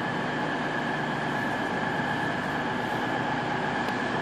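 Class 221 Super Voyager diesel-electric train standing at the platform with its underfloor diesel engines idling: a steady hum with a constant high whine.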